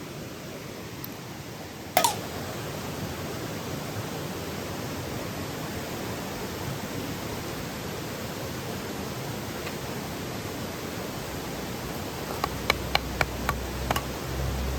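Steady rushing of river water. A sharp knock comes about two seconds in, and a quick run of small clicks near the end.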